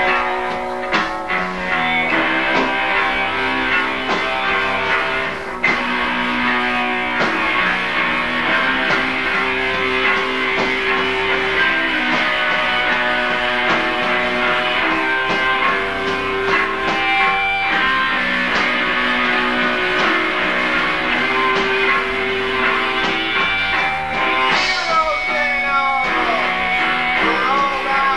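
Live rock band playing a guitar-led song, with sliding notes near the end.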